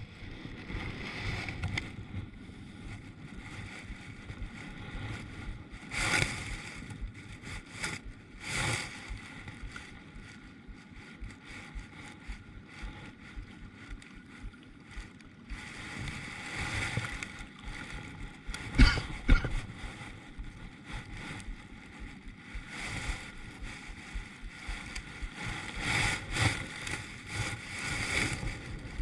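Water sloshing against a kayak hull, with a handful of short knocks or splashes, the loudest about two-thirds of the way through.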